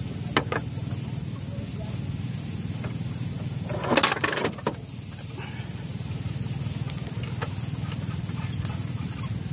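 Steady low machine hum, like a motor running, with two light clicks just after the start and a short, loud noise about four seconds in.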